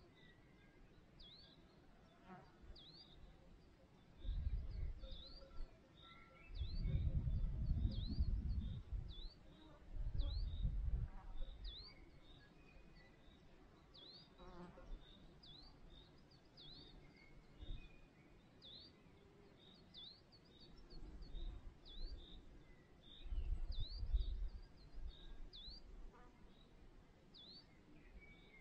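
Outdoor meadow ambience: wind gusts buffeting the microphone as several low rumbling bursts, the loudest at about seven to nine seconds in. Through it, a high, thin chirp repeats about once a second, with faint birdsong.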